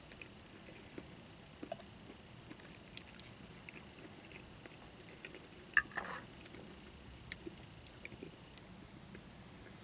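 Quiet chewing, with light clicks of a fork against a bowl and a sharper click followed by a brief scrape about six seconds in.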